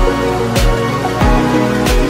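Electronic background music with a steady beat of deep kick drums, about three beats every two seconds, over held synth chords.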